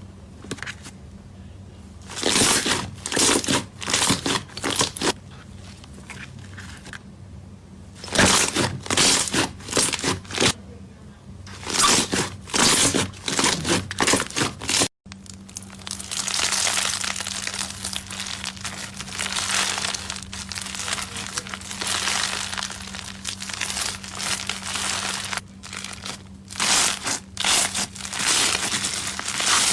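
Slime being handled and pressed by hand: bursts of crinkly noise a second or two long, then, after a cut, a longer, denser run of the same noise.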